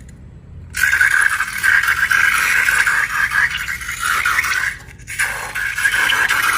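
Slime being worked and stirred, a dense run of small sticky crackles and squelches, breaking off briefly about five seconds in.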